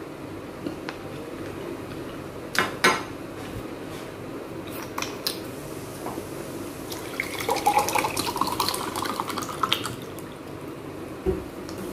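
Water poured from a plastic bottle into a drinking glass for about three seconds, the pitch of the pour rising as the glass fills. Before it come a few sharp clicks and clatters, and a single low thump near the end.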